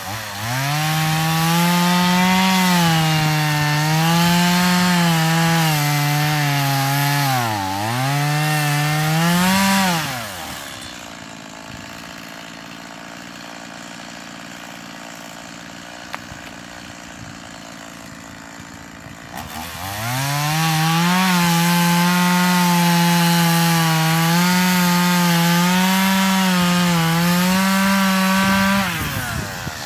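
Small chainsaw running at full throttle and cutting into a green log, shaving the bark off. The engine pitch dips sharply under load about eight seconds in, and the saw is let off about ten seconds in. A second long cut runs from about twenty seconds until near the end.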